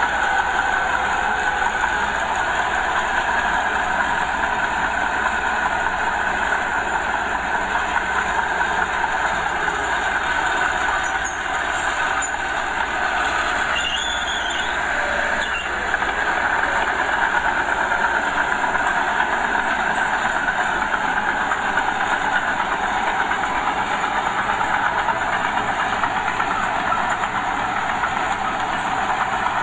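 Small Komatsu crawler bulldozer working, its diesel engine running steadily under the clatter and squeal of its steel tracks, a little quieter for a few seconds midway.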